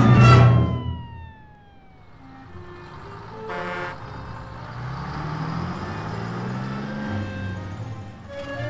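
Car sound effects: a vehicle passing with its pitch falling away, a short horn honk about three and a half seconds in, then a low engine note that rises and falls. The orchestral score cuts off at the start and comes back near the end.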